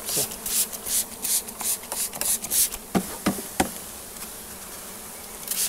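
Trigger spray bottle squirting the honeybees in quick pumps, about four a second, then three sharp raps on the bee package about three seconds in, knocking the remaining bees down into the hive. The spraying starts again near the end, over the buzzing of the bees.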